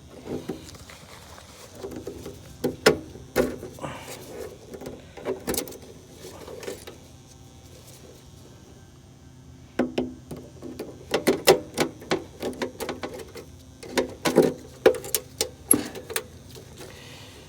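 Irregular clicks, taps and rattles of hand work in a heat pump's electrical panel: wire terminals being pulled off the run capacitor and a multimeter made ready to test it, with a quiet spell in the middle.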